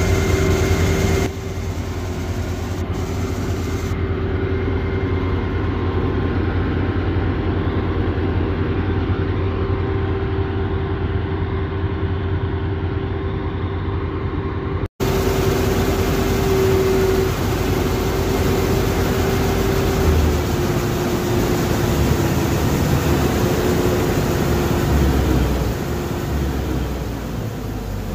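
Claas Dominator 48S combine harvester running steadily, its diesel engine and threshing machinery giving a continuous low rumble with a steady whine. The sound cuts out for an instant about halfway through, and the whine sinks slightly in pitch near the end.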